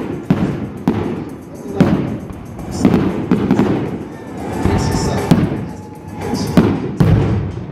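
A string of fireworks bursts, booming and crackling about once a second, over recorded music.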